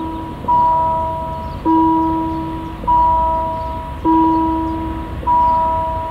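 Level crossing warning bell ringing in even strokes about every second and a quarter. Each stroke rings out and fades, and every other stroke carries a lower second tone. A low rumble runs underneath.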